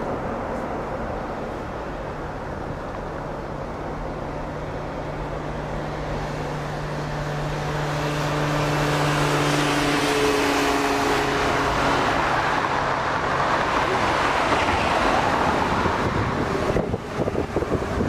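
Four-engine Airbus A340 airliner landing: a steady jet rumble with several held engine tones, growing into a louder, broader roar around touchdown and the rollout. About a second before the end it changes abruptly to wind buffeting the microphone.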